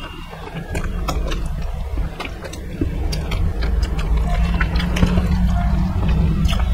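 Close-miked chewing of vada and idli, with many short wet mouth clicks and smacks, over a steady low rumble.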